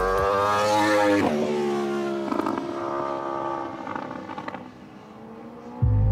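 A racing motorcycle's engine running at high revs as it passes on the track. Its pitch falls sharply about a second in, then climbs again and fades away. A loud low rumble cuts in suddenly just before the end.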